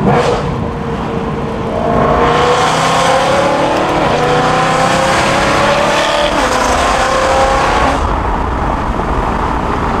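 BMW E92 M3's 4.0-litre V8 accelerating hard, heard from inside the cabin: the engine note climbs steadily for several seconds, then eases off near the end.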